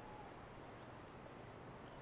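Near silence: faint outdoor background noise with a couple of faint, short chirps.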